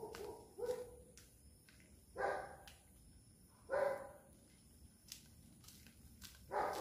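A dog barking in single barks spaced about one and a half seconds apart, three of them, with another bout starting near the end.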